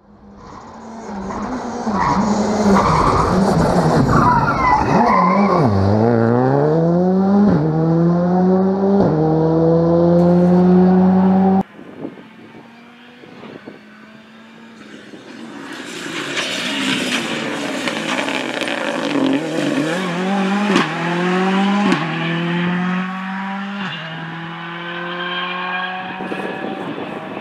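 Rally car engines at full stage pace: one car brakes with its revs falling through downshifts, then accelerates hard with clear upshifts. After an abrupt cut, a second car comes in quieter and grows louder as it accelerates through several gear changes.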